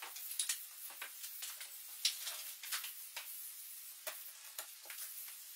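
Faint irregular clicks, taps and rustles of a large thin panel being handled and laid into a wooden frame, over a steady hiss, with a sharper tick about two seconds in.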